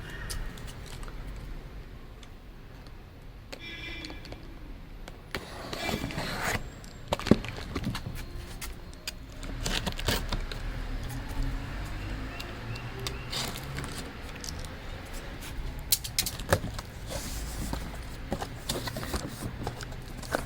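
A cardboard box being opened and unpacked by hand: scattered knocks, scrapes and rustling of cardboard and packing, with a short rapid rasp about four seconds in.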